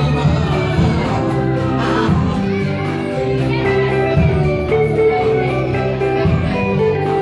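Live band music with a steady bass line moving every second or two under held chords, and women's voices singing into microphones at the start, dropping out after the first few seconds while the band plays on.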